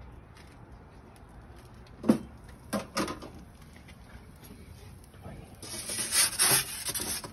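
A metal pizza peel scraping across the baking stone of an Ooni wood-fired pizza oven as it is slid under the pizza, a rasping scrape lasting over a second near the end. A few sharp knocks come about two to three seconds in.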